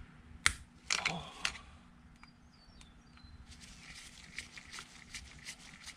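Screwdriver working in the plastic carburetor body of a 2005 Johnson 150 two-stroke outboard to get the air orifice out: a few sharp clicks in the first second and a half, then light ticking and scraping.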